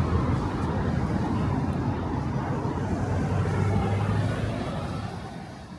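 City street ambience: a steady low rumble of passing traffic, which fades out near the end.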